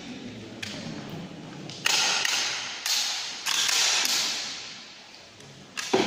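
Firearm being handled: a few sharp clicks and several quick, hissing metal slides and scrapes, the loudest bunched about two to four seconds in, as its parts are worked by hand.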